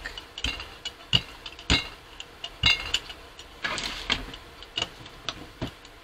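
Irregular sharp clicks and taps, about six over several seconds, with a brief scuffling patch in the middle, as a hand brayer and other gel-printing supplies are handled and set down on the worktable.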